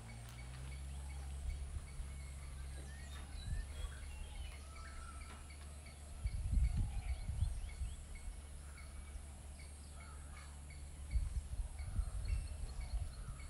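Outdoor ambience: scattered short bird chirps over a steady low rumble, with brief louder low rumbles about six seconds in and again near the end.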